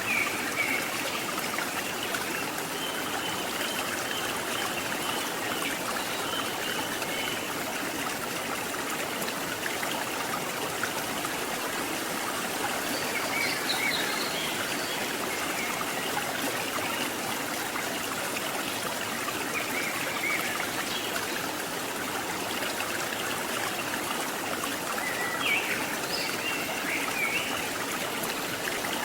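Water of a rocky river or waterfall rushing and splashing steadily.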